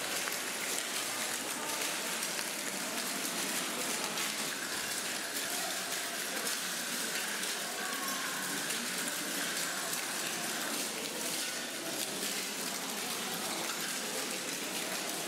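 Dense, steady crackling and crunching of broken white tile shards underfoot as several people walk over a floor covered in them, with faint voices of a crowd.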